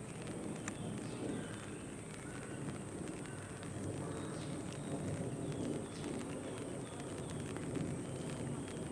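Outdoor ambience: scattered short bird calls over a steady low background rumble and hiss.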